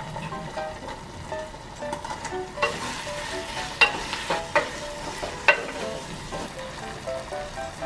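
Wooden spoon stirring chopped zucchini into a hot red sauce in a small saucepan, the sizzle and scraping swelling a few seconds in. Three sharp knocks of the spoon against the pan come close together in the middle.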